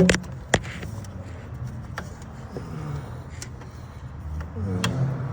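A few sharp, scattered metallic clicks and knocks of hand tools working on a hose clamp in an engine bay, the loudest about half a second in, over a steady low hum.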